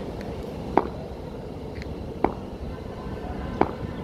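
Three sharp knocks, about a second and a half apart, each with a short ring, over a steady low background hum.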